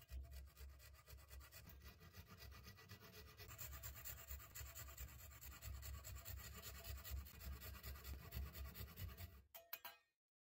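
Fine-toothed handsaw cutting back and forth through a small wooden dowel clamped in a vise: a faint rasping in quick, short strokes that stops about nine and a half seconds in. The saw is making a row of kerf cuts to clear a section of the dowel.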